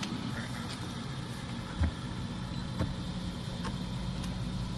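Steady low hum of an idling engine, with a single knock a little under two seconds in and a few faint clicks after it.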